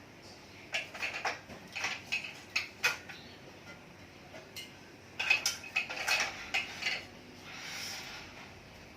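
Sharp metallic clicks and clinks from tools and clamps on a manual racket-stringing machine, in two quick clusters about a second and five seconds in, followed by a softer hiss near the end.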